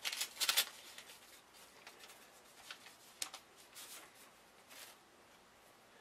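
Paper rustling as a greeting card is handled and slid out of its envelope: a short burst of crinkling at the start, then a few soft, scattered rustles.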